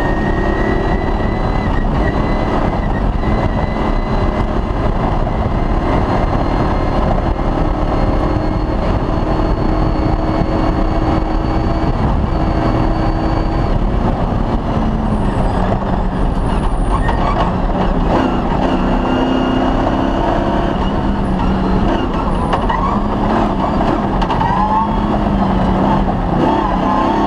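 Cross-country rally car's engine running hard at speed over a constant wash of road noise. Its note holds steady at first, then rises and falls repeatedly in the second half as the throttle and gears change.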